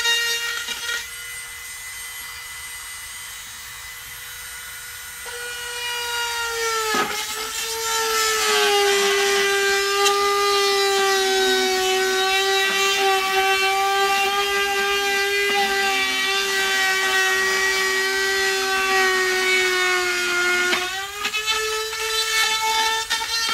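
Dremel rotary tool whining at high speed while cutting holes in a thin plastic panel. About seven seconds in, the bit bites into the plastic with a click and the pitch drops, staying lower with a cutting hiss under load. Near the end the pitch rises again as the bit comes free.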